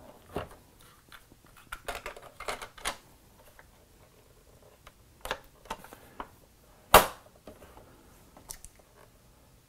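Plastic clicks, knocks and light rattles from a Timex Sinclair 2068 computer's case and hinged cartridge-port door being handled and worked open by hand. There is one sharp click about seven seconds in.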